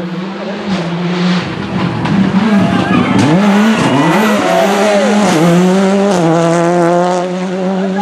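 Rally car engine revving up and down sharply as the car brakes into and accelerates out of a tarmac hairpin, with some tyre squeal. The engine is then held at steady high revs as it pulls away, loudest a little past the middle.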